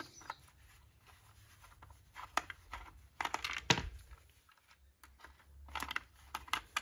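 Scattered light clicks and scraping as the electrical meter's plastic case and brass parts are handled, in a few short clusters with quiet gaps between.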